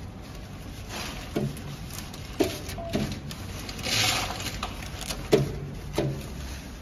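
Metallic packing film rustling and crinkling as it is worked by hand over the steel forming collar of a vertical packing machine. Several short knocks come through, and there is a louder crinkle about four seconds in.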